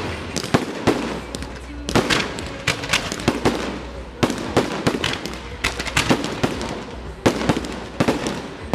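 Fireworks display: aerial shells bursting in quick succession, a dense string of sharp bangs and crackles, several a second, with heavier booms about two, four and seven seconds in.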